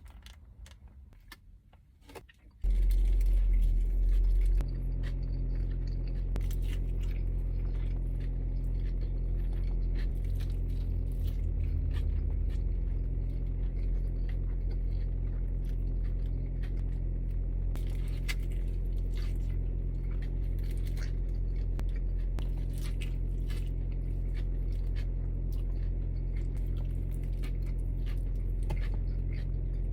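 Close-miked eating of an In-N-Out burger and fries: biting and chewing with scattered clicks and crackles. A steady low hum comes in about three seconds in and is the loudest thing throughout.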